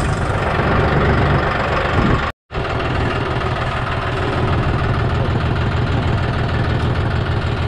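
John Deere 5065E tractor's three-cylinder diesel engine running steadily as the tractor drives along, heard from the seat, with a momentary dropout about two and a half seconds in.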